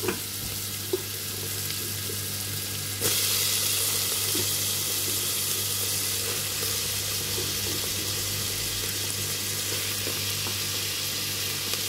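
Chopped onions and green chillies sizzling in hot butter in a pan, over a steady low hum. About three seconds in, the sizzle jumps louder and brighter as chopped tomatoes go into the hot butter, and it stays at that level.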